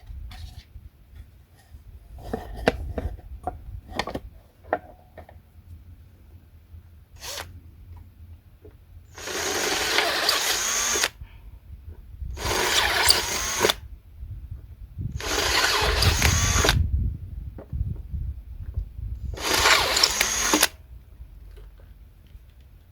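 Power drill run in four short bursts of one to two seconds each, opening bolt holes out to 7 mm. A few light clicks and knocks of handling come first.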